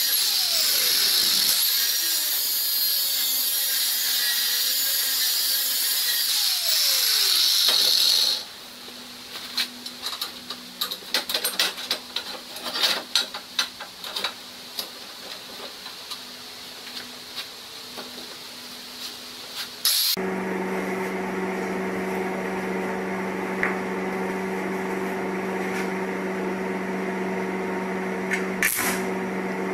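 Angle grinder with an abrasive disc cutting steel bar, a loud high whine that stops about eight seconds in. Then scattered clanks and taps of the steel pieces being handled on a steel fixture table, and from about twenty seconds in a steady electrical hum with a few sharp crackles near the end.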